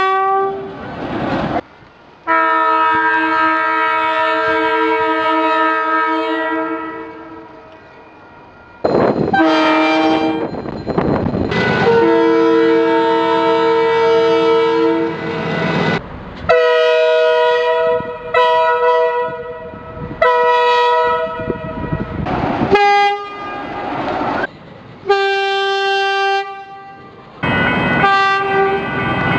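A run of diesel locomotive air horns, one engine after another, including DE, DH and DSC class shunters. There are long held blasts of several seconds and groups of short toots, and the chord and pitch change from one horn to the next.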